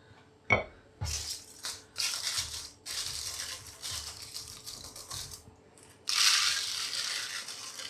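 Aluminium foil crinkling in crackly bursts as it is pressed into a metal loaf tin, after a sharp knock about half a second in; about six seconds in, dry rice is poured from a glass jar into the foil, a steady rattling hiss.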